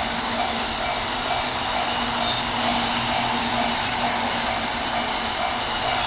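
E233-series electric commuter train passing close by at speed: a steady loud hiss of wheels on rails and rushing air, with a low steady hum under it. A level-crossing warning bell rings in a repeating pattern through it.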